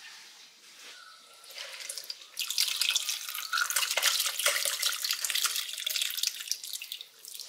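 Braising liquid with chunks of vegetables poured from a pot through a mesh strainer into a bowl, splashing and pattering into the sieve. It starts about two and a half seconds in and runs for about four and a half seconds.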